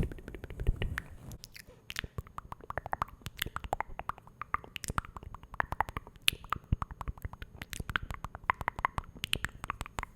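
Close-miked ASMR mouth sounds: rapid, irregular wet clicks and smacks of the lips and tongue.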